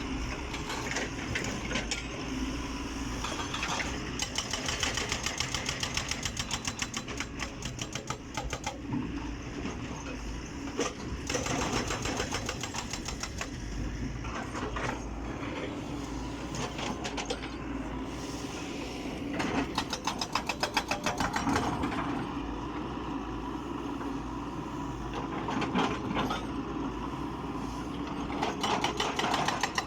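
Excavator's diesel engine running with a rapid steady pulse, growing louder for a few seconds at a time.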